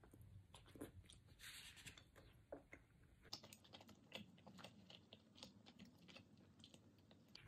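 Faint chewing of a soft bite of cheese: quiet mouth noises with scattered small clicks.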